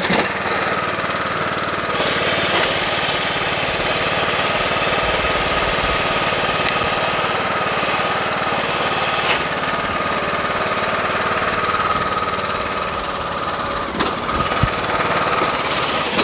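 Craftsman riding lawn tractor engine running loud and steady as the tractor creeps forward under its own drive, with a few sharp knocks near the end. The ground drive belt is slipping, which the owner puts down to grass and sand packed behind the clutch/brake idler.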